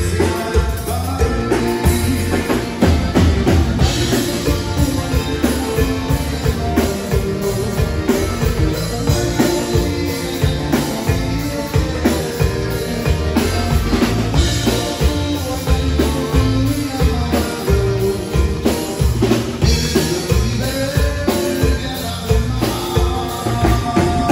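Live band playing an instrumental passage: a drum kit keeps a steady beat under bass, button accordion, guitar and saxophone, with no singing.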